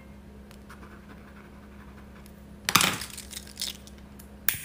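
Faint scratching of a ballpoint pen scribbling on a sketchpad, with a short rustle about halfway through and a sharp click near the end.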